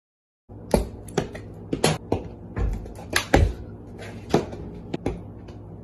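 A dozen or so irregular knocks and taps over a steady low hum, starting about half a second in.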